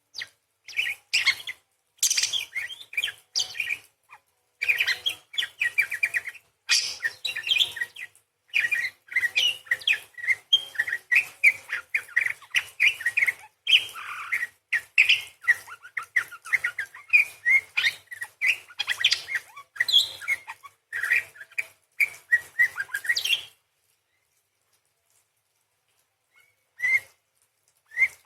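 Parakeet giving a long run of rapid, sharp chattering chirps and trills that stops short about three-quarters of the way through, followed by a few single chirps near the end.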